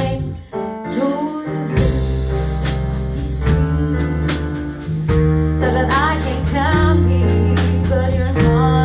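A live band playing a song: a singer holding long notes with vibrato over guitar, a steady bass line and percussion. The music drops out briefly about half a second in, then comes back.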